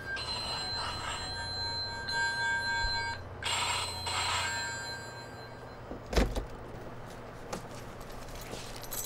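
A flip-style mobile phone ringing with a steady electronic tone for about three seconds, then a short burst of noise. About six seconds in comes a single loud thump.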